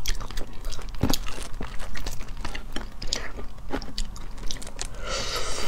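Close-miked eating of cooked shellfish: wet chewing, lip smacks and sharp little clicks as the meat is bitten and the shells are handled. A denser crackle comes near the end, as a shell is broken apart.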